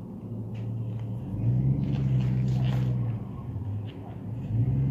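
Low engine rumble with a steady hum. It swells and rises a little in pitch about a second and a half in, falls back about three seconds in, and swells again near the end.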